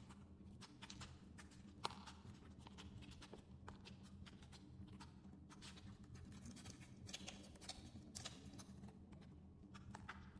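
Fingers squeezing and poking a soft slime, giving faint, irregular clicks and pops, with one sharper click about two seconds in. A faint steady low hum runs underneath.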